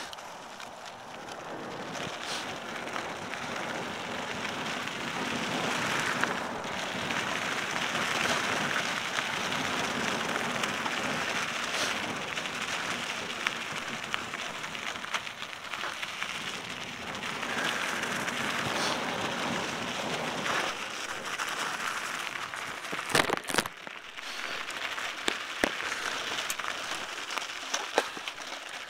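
Mountain bike rolling downhill on dry dirt single-track: a steady crackling rush of knobby tyres over dirt and small stones, with wind on the helmet-mounted microphone. Scattered clicks and rattles from the bike run through it, with a few sharp knocks about two-thirds of the way through.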